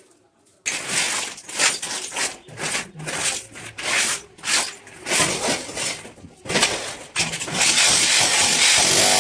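Repeated hammer blows chipping into masonry, about two a second and unevenly spaced. About seven and a half seconds in, a power tool starts cutting with a steady, loud, hissing noise.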